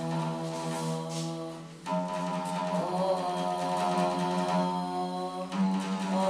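A singing voice holding long sustained notes in a vocal-range exercise. The pitch steps up twice, about two seconds in and again near the end, and an oud is heard with it.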